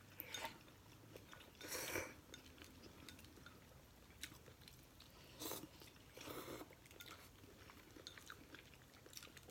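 Quiet eating sounds of a person chewing instant noodles, with a few short, soft noisy bursts of mouth and bowl sounds.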